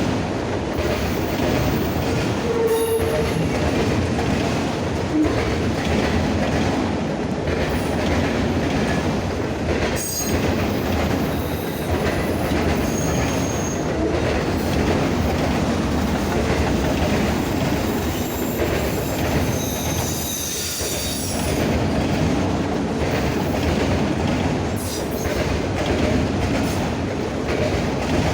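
Norfolk Southern freight train cars rolling past with a steady clickety-clack of wheels over rail joints. Short high-pitched wheel squeals come through about halfway in and again around two-thirds of the way through.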